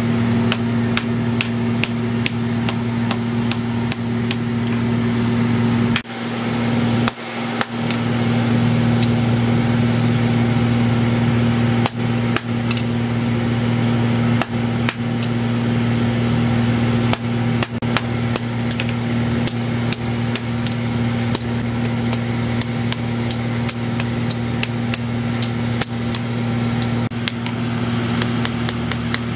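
A hand hammer strikes a steel knife blade on a steel-post anvil: a quick, steady run of metal-on-metal blows, about three a second, with a short pause about six seconds in. A steady low machine hum runs underneath.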